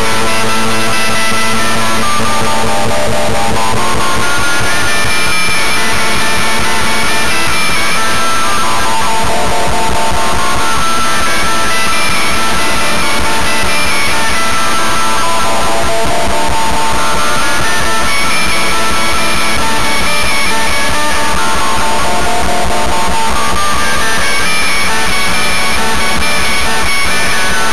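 A rock song with guitar, sampled and played back by the Apple II Double Talk digital sound program as low-fidelity digitized audio, with a steady noisy hiss under the music throughout.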